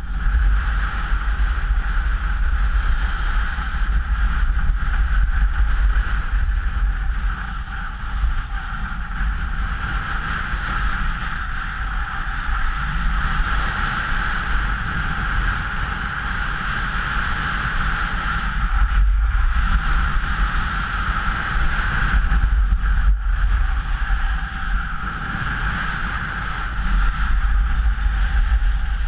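Wind buffeting the microphone of a skier's camera during a downhill run, a steady low rumble, with the continuous hiss and scrape of skis sliding over packed snow, swelling and easing as the run goes on.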